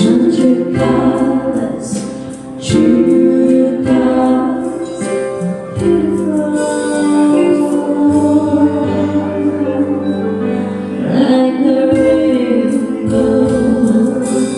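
Two women singing a duet into microphones over instrumental accompaniment.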